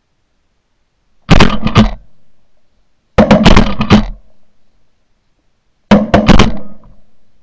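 Shotguns firing in three quick volleys about two seconds apart, each volley a cluster of several shots close together.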